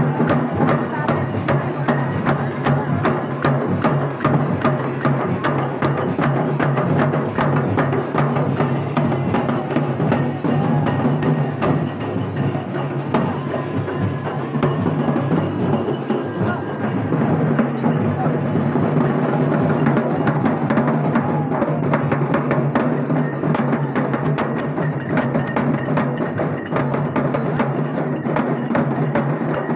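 Dappu frame drums and a stick-beaten barrel drum played together in dense, continuous festival drumming.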